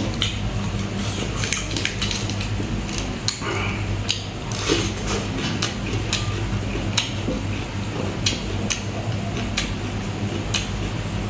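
Close-up eating sounds: crisp salad vegetables being chewed, with irregular sharp clicks, and a metal spoon clinking and scraping in the dish. A steady low hum runs underneath.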